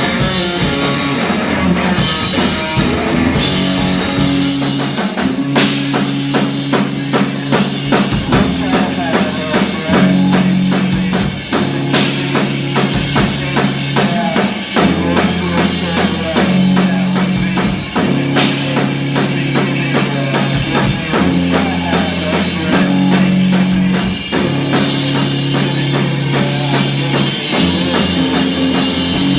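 Live rock band playing loud: a drum kit keeps a fast, steady beat under sustained bass notes and guitar. Cymbal crashes come about five seconds in and again near eighteen seconds.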